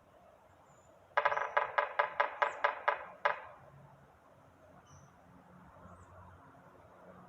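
Northern flicker hammering with its bill in a quick run of about ten sharp knocks over two seconds, each one ringing briefly off a resonant surface, with a last knock after a short pause.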